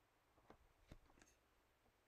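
Near silence: room tone with a few faint, short clicks about half a second to a second in.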